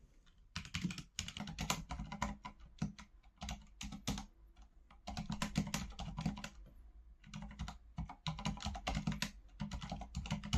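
Typing on a Corsair K70 RGB Lux mechanical keyboard with Cherry MX Silent Red linear switches: quick runs of keystrokes with a few short pauses.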